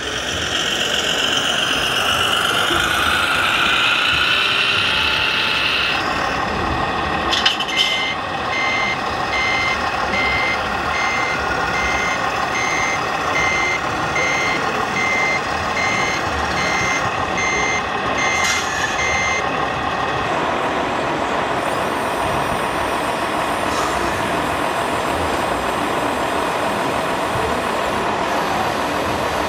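Reversing beeper from an RC scale model truck's sound module: evenly spaced high beeps, a little more than one a second, for about twelve seconds, starting some eight seconds in. Before the beeping a wavering tone glides up and down, and steady background noise runs throughout.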